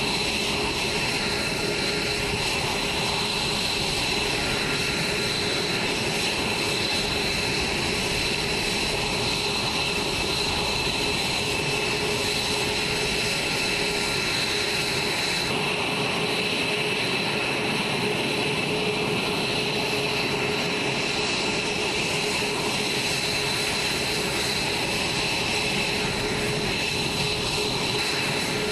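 F-22 Raptor's Pratt & Whitney F119 turbofan engines idling on the ground: a steady rush of jet noise with several constant high whining tones.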